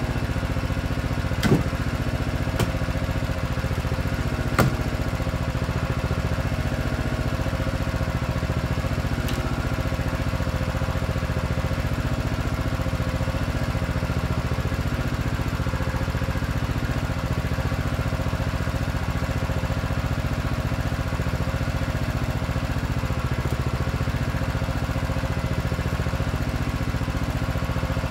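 Split-fire 2265 log splitter's gas engine running steadily, with three sharp cracks in the first five seconds.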